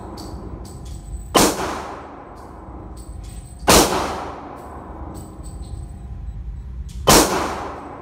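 Three gunshots from neighbouring lanes of an indoor range, each a sharp crack with a long ringing echo off the walls, coming about a second and a half in, near four seconds and about seven seconds in.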